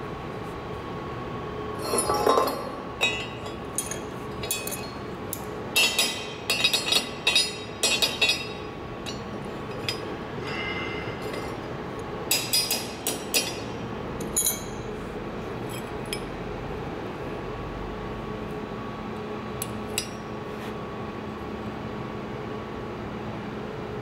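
Metal clinks and clanks as short steel pipe pieces and copper tubes are set down and arranged on firebricks. The clinks come in clusters over the first fifteen seconds or so, with one more near the end, over a steady faint hum.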